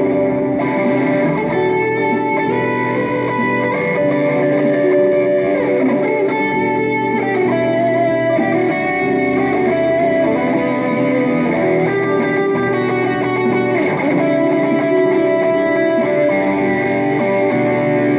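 Electric guitar played through a Mooer GE200 multi-effects processor into an amplifier, picked up from the amp by a phone microphone: a picked lead line with long held, ringing notes over chords.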